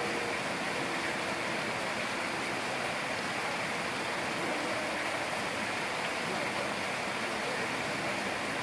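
Steady rush of running water, an even hiss that holds level throughout.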